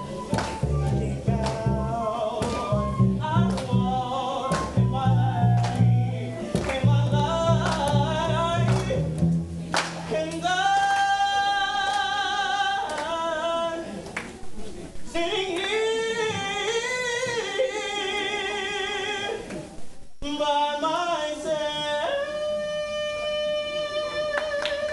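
Live singing over a plucked upright double bass bass line. About ten seconds in the bass drops out and the voice goes on alone, holding long notes with a wavering vibrato, with a short break near the end.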